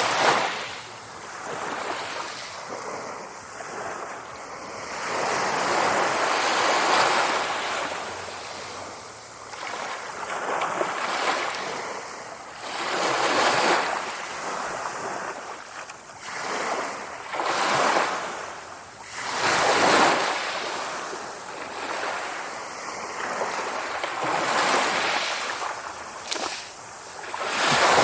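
Sea waves breaking and washing onto the shore. The surf swells and ebbs in uneven surges every few seconds.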